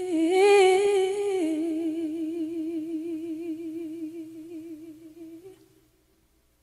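A singer's voice holds a long note with a wavering vibrato, steps down to a lower held note about a second and a half in, then fades out, leaving silence near the end: the closing note of a sung line.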